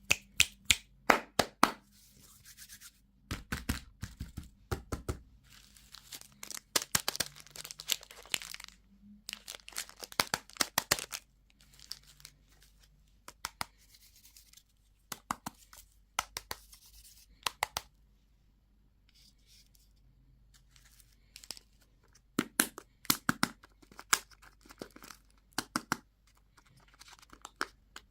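Candy and toy packaging being crinkled and torn open by hand, in bursts of sharp crackles with short pauses between them.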